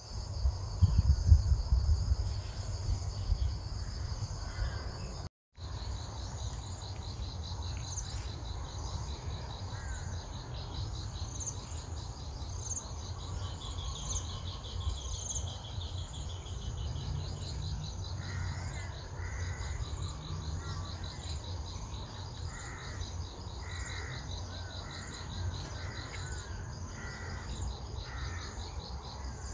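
Outdoor tree-canopy ambience: steady high chirring of insects, with a bird giving short repeated calls through the second half, over a low rumble. A few louder low bumps in the first two seconds, and a brief dropout about five seconds in.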